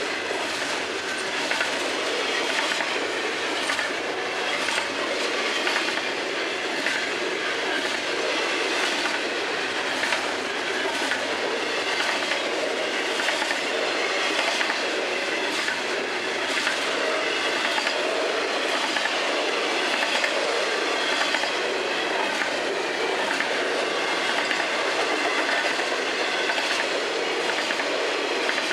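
Double-stack intermodal freight cars rolling past: a steady rumble of steel wheels on rail with a repeating clickety-clack as the wheels cross rail joints.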